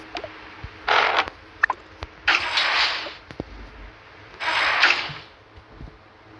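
Three short creaking noises, each lasting up to about a second, with a few light clicks between them.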